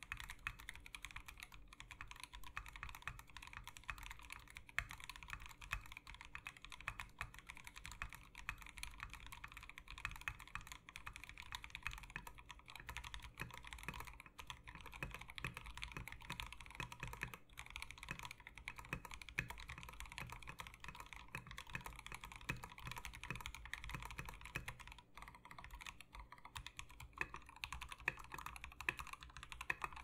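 Steady fast typing on a KBD8X MKII polycarbonate mechanical keyboard with lubed, filmed C3 Tangerine linear switches under MT3 Serika keycaps, on a POM plate. The plate is top-mounted at first and gasket-mounted partway through, which changes the keystroke sound.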